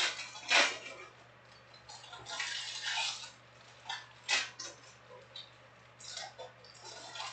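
Foil trading-card pack wrappers crinkling and tearing open, with cards being handled, in short irregular bursts.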